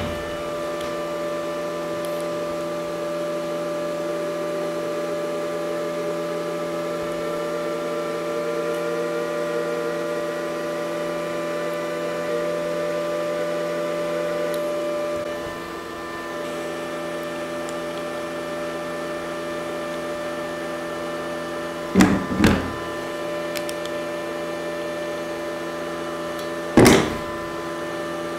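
Parkside PIFDS 120 A1 flux-core welder humming steadily while its wire-feed motor pushes flux-core wire through the torch hose. A faint tone slowly rises and then drops away about halfway through. There are two short knocks near the end.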